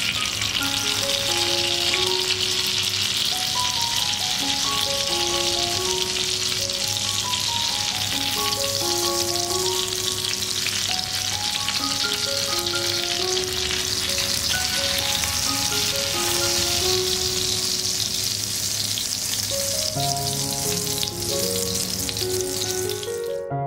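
Oil sizzling steadily in a frying pan around tuna-and-eggplant omelettes (tortang talong) as they fry. The sizzle cuts off abruptly just before the end, leaving soft background music with a run of keyboard notes.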